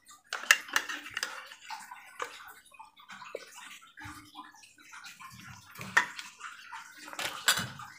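Metal spoon scraping inside an opened tin can, scooping out wet canned fish, with irregular clicks and scrapes.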